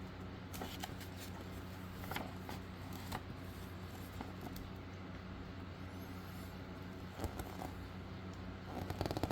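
Pages of a paper instruction booklet being turned and handled: a few short rustles and soft taps, with a cluster near the end, over a steady low hum.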